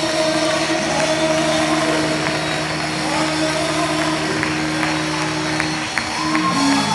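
The close of a live gospel choir song: the band and voices hold a final chord under a steady wash of crowd noise, with scattered sharp claps in the second half.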